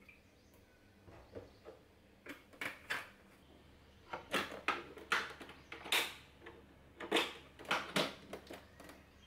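Plastic clicks and knocks from an illy capsule coffee machine and its capsule being handled while the machine is loaded, in an irregular run of about a dozen sharp clicks. A faint low hum comes in a few seconds in.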